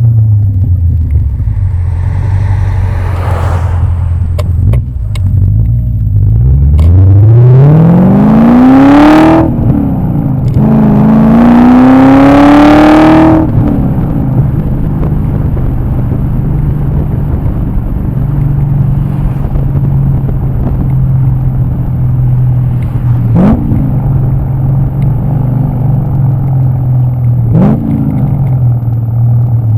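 E39 BMW M5's V8 engine pulling hard at full throttle: the revs climb steadily through one gear, drop at a quick upshift and climb again through the next, then ease off to a steady cruise. Two brief blips of revs come later.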